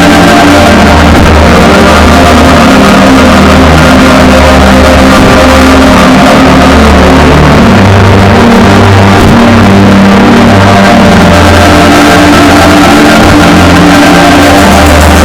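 Very loud music with low sustained notes that change every second or two, playing at full level without a break.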